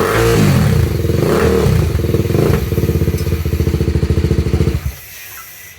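BMW G310 RR's single-cylinder engine through an aftermarket full exhaust system, blipped up and down three times in quick succession, then running steadily with a deep bass note before the sound cuts off suddenly near the end.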